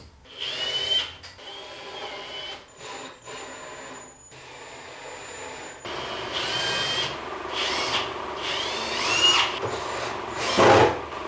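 Cordless drill/driver running in several short bursts, each a whine that rises and then holds, driving screws to mount full-extension drawer slides. A loud knock comes near the end.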